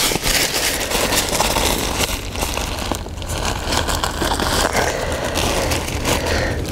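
Big Agnes Copper Spur UL1 rain-fly fabric rustling and crinkling as the vestibule door is rolled up and tied back, over a steady low rumble.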